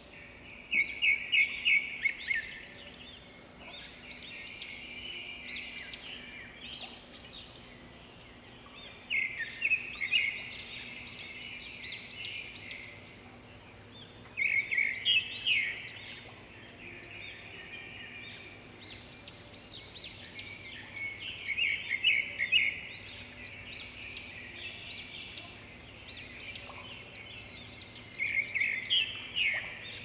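Birds chirping in bursts of quick, high repeated notes, a loud trill returning every six to seven seconds with softer chirps in between.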